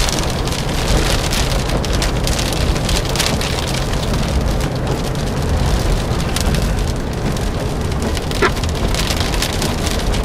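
Heavy rain striking a vehicle: a dense, steady hiss full of sharp individual drop hits, over a low steady rumble.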